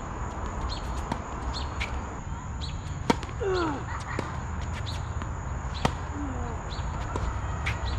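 Tennis ball struck with racquets in a rally on an outdoor hard court: two sharp pops, one about three seconds in and one near six seconds, with a few fainter ball taps and short falling squeaks in between, over a steady low rumble.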